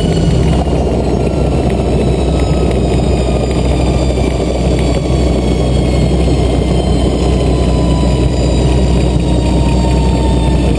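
Rotorway 162F helicopter idling steadily on the ground with its rotor turning, heard from the cockpit. A faint high whine slowly drops in pitch over the engine hum.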